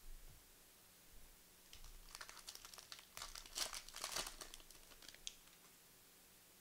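A foil trading-card pack being torn open and its wrapper crinkled: a run of crackling from about two seconds in, loudest a little before the four-second mark, dying away before the end.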